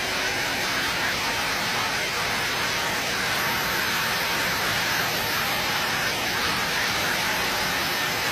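Face-mask making machine running: a steady, even hiss with no clear rhythm or pitch.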